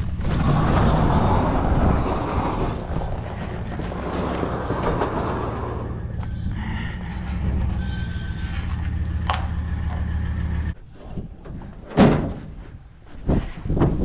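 A large wooden sliding barn door rolling open along its track, with a loud rumble for the first few seconds. Then an engine idles steadily and cuts off suddenly. A single sharp knock comes about two seconds before the end.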